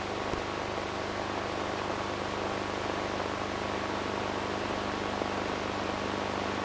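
Steady hiss with a constant low hum underneath: the background noise of an old analogue video recording, with no music or other sound over it.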